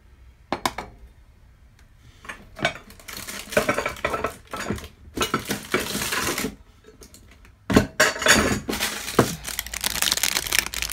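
Household items being handled and set down: a few sharp clicks and knocks, then long stretches of crinkling and rustling with small clinks, about three seconds in and again from about eight seconds.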